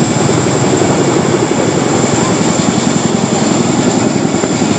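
RAF Boeing CH-47 Chinook's tandem rotors beating rapidly and loudly, with a steady high whine above, as the helicopter backs up and lifts off.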